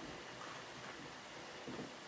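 Faint scuffing of a gloved hand rubbing a pad along the top of a small wooden frame, hand-finishing the wood: a soft scrape about half a second in and another near the end.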